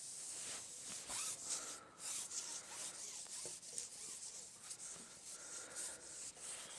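Irregular rubbing and rasping of a carbon fishing pole being drawn back through the hands and over the pole roller while a hooked fish is played.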